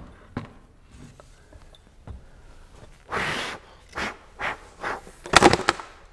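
Rummaging in an overhead storage rack and pulling down a dusty length of aluminum T-track: a few light knocks, then a series of short rushing, scraping noises, the loudest about five seconds in.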